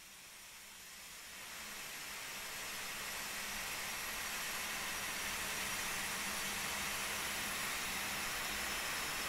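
A steady rushing hiss that swells up over the first couple of seconds and then holds level.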